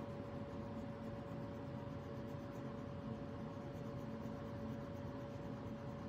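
Faint, steady scratching of blue colour being scribbled back and forth on paper to fill in a small shape.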